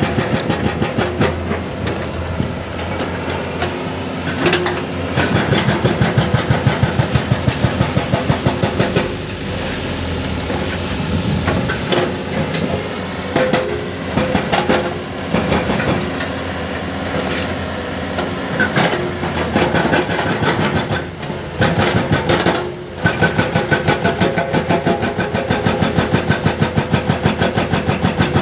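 Excavator-mounted hydraulic breaker hammering in bursts of rapid, even blows over a running diesel excavator engine. There are brief pauses between bursts.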